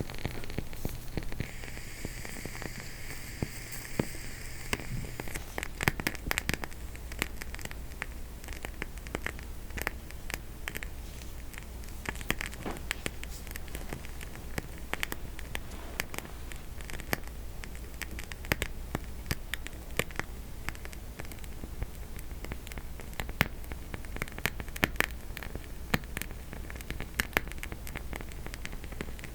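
Homemade wooden wick candle burning, its avocado-oil-soaked popsicle-stick and coffee-stirrer wicks crackling in irregular sharp pops and ticks over a low steady hum.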